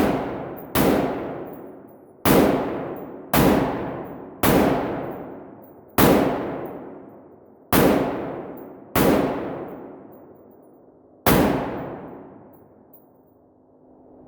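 AR-15 rifle firing nine single shots at an uneven pace, one to two seconds apart. Each crack trails off over a second or more before the next.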